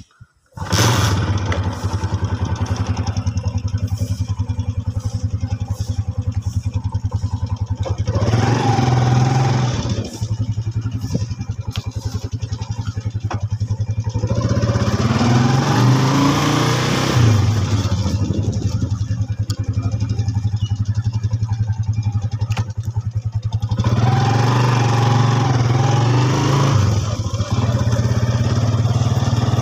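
Motorcycle engine starting about half a second in, then running steadily as the bike rides along. The engine note rises several times as it accelerates.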